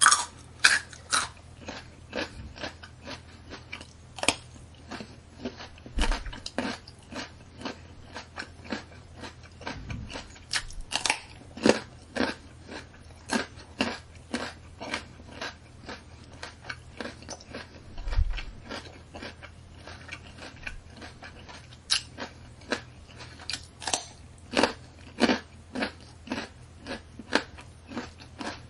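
A person biting into and chewing a carrot: a long run of sharp, irregular crunches, a few every second, over a faint steady low hum.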